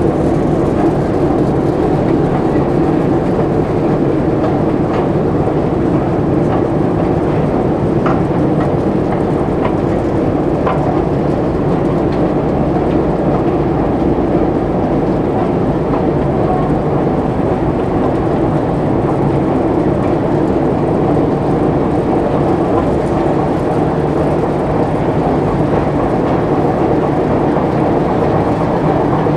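Metro station escalator running: a steady mechanical rumble and clatter from the moving steps, with a few faint clicks about a third of the way through.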